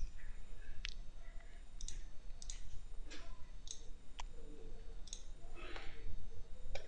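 Computer mouse clicking, about ten sharp clicks at irregular intervals, over a low, steady hum.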